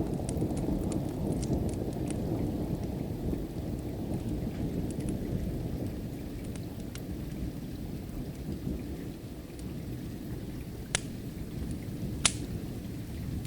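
A low rumble of distant thunder slowly dying away under steady rain, with sharp pops from a crackling wood fire, two louder ones near the end.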